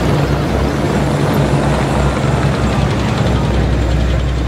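Heavy military vehicles driving past with a steady, low engine rumble.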